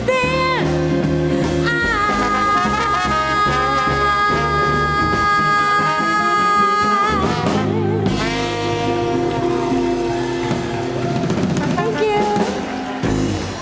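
Live swing band with horns, guitar, bass and drum kit playing the closing bars of a jazz tune, with long held horn notes, the band stopping near the end.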